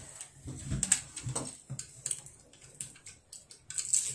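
Chopsticks clicking and scraping against a child's bowl as leftover rice is picked up, in a string of light clicks with a dull knock just before a second in.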